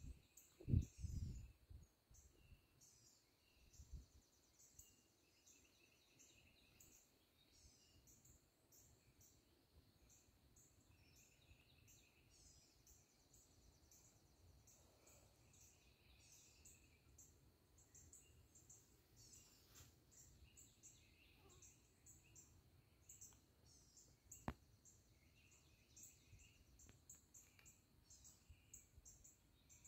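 Faint songbirds chirping and calling over and over. A few low thumps come in the first two seconds, and a single sharp click about 24 seconds in.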